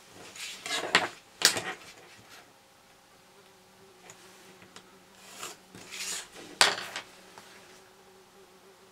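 A pencil scratches along a steel ruler across card in two short bouts, with a few sharp clacks of the metal ruler on the wooden tabletop, the loudest about a second and a half in and again near the end.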